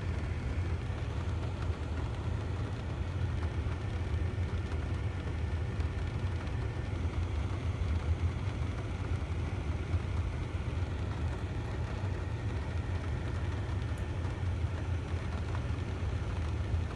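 Moderate rain falling steadily during a thunderstorm, over a constant low rumble.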